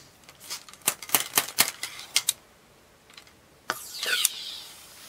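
Ramrod working in the barrel of a Pedersoli 20-gauge flintlock double shotgun while loading: a quick run of sharp taps and clicks as the load is seated, then, after a short pause, a longer sliding sound of the rod moving along the bore.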